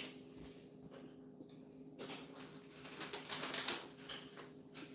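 Faint scattered clicks and rustles from hands handling things close to a clip-on microphone, thickest about three seconds in, over a steady low hum.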